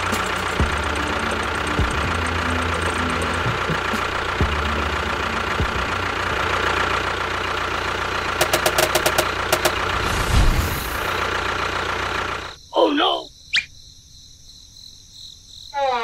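Small electric motor and gears of a miniature toy tractor running steadily, then stopping abruptly about twelve seconds in. A few short gliding squeaks follow.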